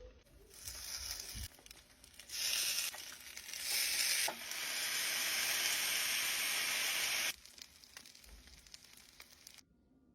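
Food sizzling as it cooks, a frying hiss that comes in a few surges. The longest and loudest surge stops sharply about seven seconds in, and a fainter hiss follows for a couple of seconds.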